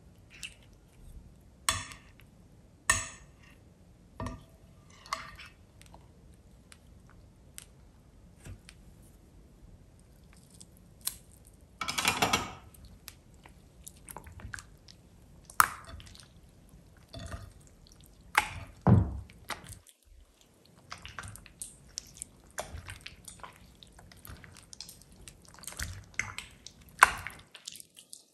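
Hands stirring and kneading wet, sticky slime: irregular squelches with small sticky pops and clicks, including a longer squish about twelve seconds in.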